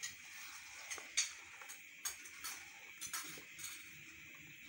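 Silicone spatula clicking and scraping against an aluminium karahi while stirring a thick paste, a string of irregular light knocks over a faint steady hiss.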